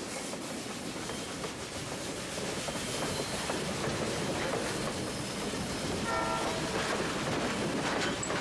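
Passenger cars of a train rolling past at close range: a steady rumble of wheels on rail with clicking over the rail joints. A brief high tone sounds about six seconds in.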